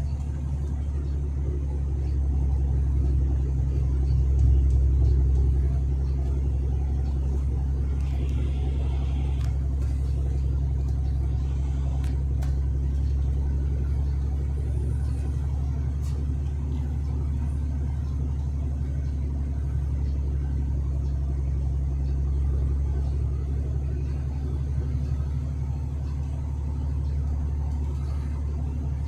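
Steady low drone of a truck on the move, heard from the cab: engine and road noise, swelling a little a few seconds in.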